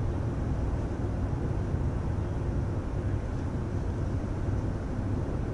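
Steady outdoor city ambience: an even low rumble with a light hiss above it, with no distinct events.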